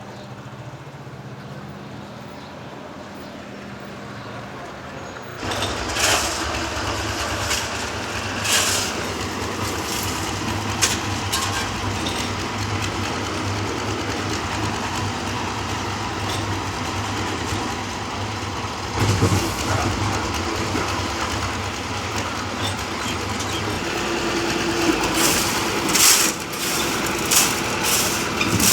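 Concrete mixer running: a steady low hum, then about five seconds in a much louder mechanical rumble with irregular knocking and clattering on top. The clatter carries on near the end after the low rumble eases.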